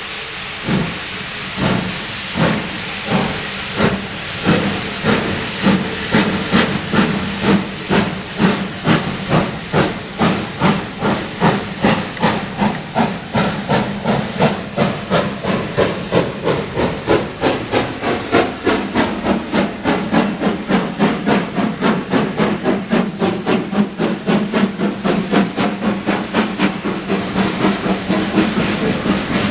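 Steam locomotive pulling away: a steady hiss of steam, then exhaust chuffs starting about a second in, about two a second and quickening to about four a second as the engine gathers speed.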